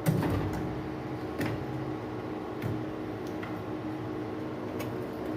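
Scattered light metal clicks and knocks from tools and parts being handled while a washing machine's gear mechanism is taken apart, with a heavier clunk right at the start, over a steady background hum.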